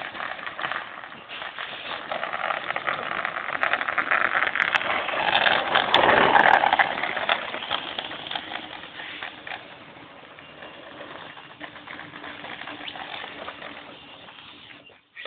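Skateboard wheels rolling over pavement, a steady rough rolling noise that swells to its loudest about six seconds in and then fades away.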